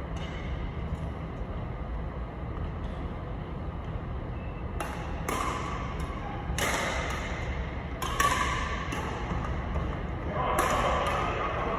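Badminton rackets striking a shuttlecock in a rally: a run of sharp hits, each with a short echo tail from the large hall, starting about five seconds in and coming every half second to a second.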